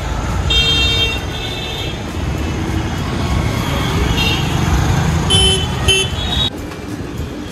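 Busy street traffic with a steady engine rumble and vehicle horns honking in several short blasts.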